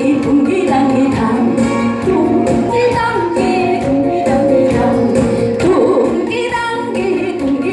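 A woman singing a Korean song over instrumental accompaniment, her voice holding and bending long notes above a steady plucked backing.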